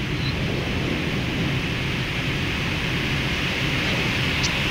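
Steady rush of airflow and engine noise inside a Boeing 777 flight deck on final approach, a low rumble under an even hiss.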